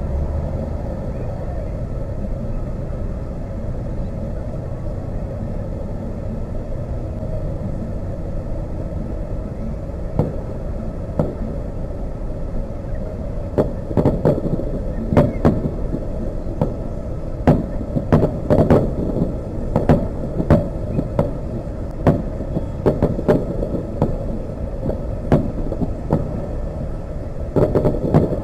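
Fireworks shells bursting, heard through an outdoor webcam microphone over a steady low rumble. Scattered sharp bangs start about ten seconds in, then come in quick runs through the second half, with a close cluster near the end.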